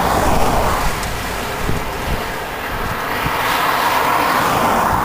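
Steady road and tyre noise inside a moving car, with an oncoming car swishing past near the end.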